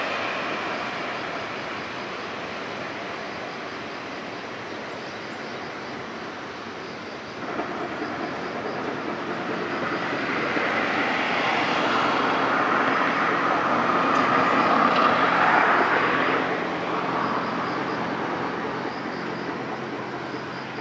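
A vehicle passing close by. Its rumbling noise starts abruptly about a third of the way in, builds to a peak, then falls away fairly quickly, leaving a lower steady hum near the end.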